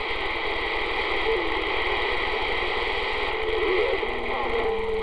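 CB radio receiver on channel 6 putting out steady static hiss between transmissions, with faint whistling heterodyne tones from other carriers coming and going; a low steady tone starts about four seconds in.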